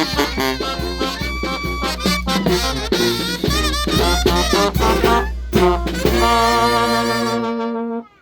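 A band playing a ranchera, with wavering, vibrato-laden melody lines over a steady beat, ending on a long held chord that cuts off shortly before the end.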